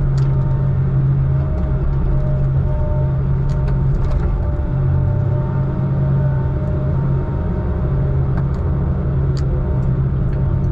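Heavy diesel engine of logging equipment running steadily, a continuous low drone with a few faint ticks over it.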